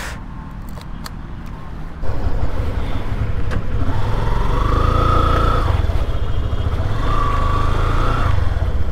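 Yamaha FZ-S V2's 149 cc single-cylinder engine idling, then pulling away about two seconds in and running harder as the bike rides off. A higher whine rises and falls twice as it revs.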